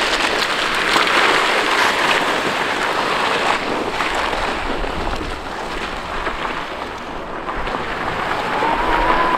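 A rider in SA1NT motorcycle jeans dragged across coarse asphalt behind a car on tow ropes: a steady gritty scraping of denim and body armour on the road surface, mixed with wind on the microphone. Near the end a thin whine comes in and slowly rises in pitch.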